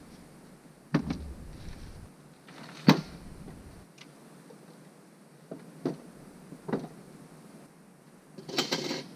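A handful of irregular sharp knocks and clicks, the loudest about three seconds in, with a short clattering rustle near the end.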